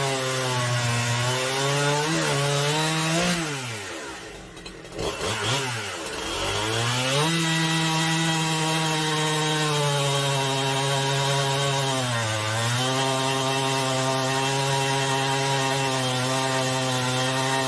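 HOLZFFORMA two-stroke chainsaw running at high revs while sawing wood, its engine pitch sagging briefly under load a few times. About three seconds in the revs fall away for a few seconds, then climb back to a steady high pitch, with one more short dip later.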